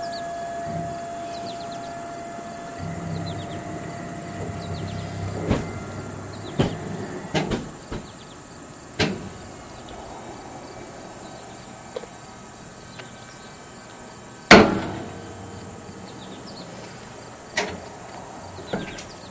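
Nasatka NMSB XII drop-arm crash-beam barrier in operation: a steady whine from its drive for the first few seconds as the arm swings up, then a series of metallic clanks. The loudest clank, about three-quarters of the way through, is a sharp bang that rings on briefly.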